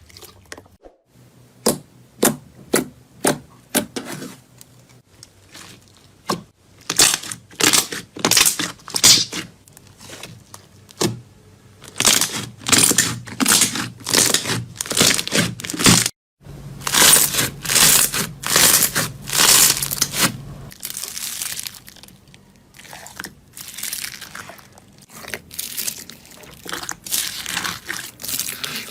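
Sharp crackling and crunching from crunchy ASMR material being pressed and broken by hand. It starts as a few separate cracks, then runs into quick trains of crackles, in several short clips with a brief cut about two-thirds of the way through.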